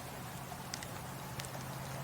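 Wood fire burning in a fireplace: a steady hiss with a couple of sharp crackles, one a little under a second in and another about a second and a half in.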